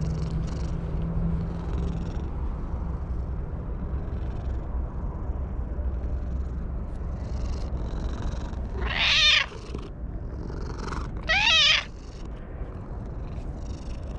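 An orange-and-white stray cat purring steadily as it is stroked, with two short meows, the first about two-thirds of the way through and the second two seconds later, wavering in pitch.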